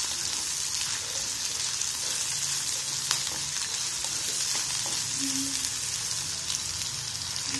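Chopped onions sizzling steadily in hot oil in a frying pan as a spatula stirs them, with a few light clicks of the spatula against the pan. The onions are being lightly fried, not browned.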